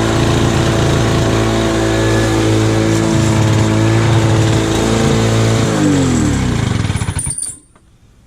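1991 Lawn-Boy M Series (M21BMRD) two-stroke mower engine running steadily, then shut off: its pitch drops as the engine and blade spin down, stopping about seven and a half seconds in.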